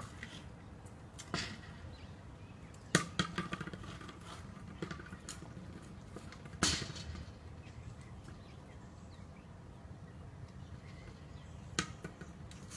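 A hard plastic dog ball knocked and bounced along paving by a Staffordshire bull terrier: a few sharp knocks spaced seconds apart, one of them followed by a quick run of smaller bounces.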